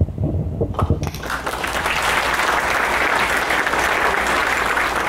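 A roomful of people applauding. A couple of thumps come in the first second, then the clapping swells in and holds steady.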